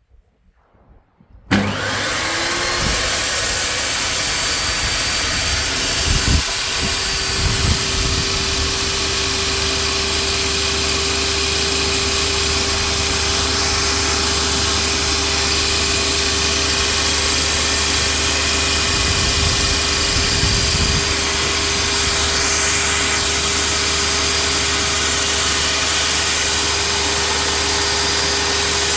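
Meec Tools 2000 W table saw with a 250 mm blade, switched on about a second and a half in: it spins up quickly, then runs at a steady speed with a constant whine.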